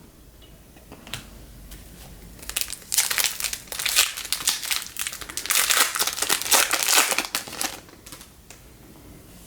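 A trading card pack wrapper crinkling as it is torn open and handled. It starts about two and a half seconds in and lasts about five seconds.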